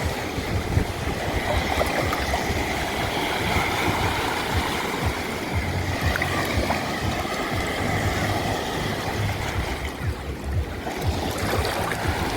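Sea waves washing and hissing on the shore, a steady wash of water, with wind buffeting the microphone as a gusty low rumble.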